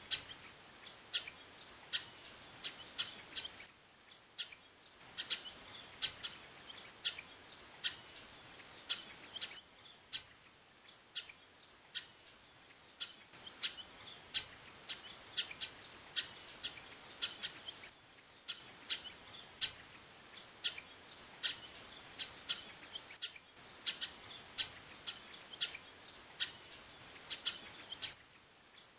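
Female chestnut-capped blackbird (garibaldi) giving short, sharp call notes over and over, about one or two a second with brief pauses, over a steady high insect drone.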